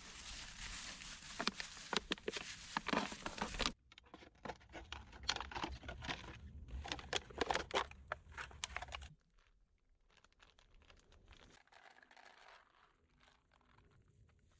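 Clear plastic bag crinkling and crackling as it is handled together with a plastic water bottle. It breaks off for a moment about four seconds in, and after about nine seconds only faint rustling is left.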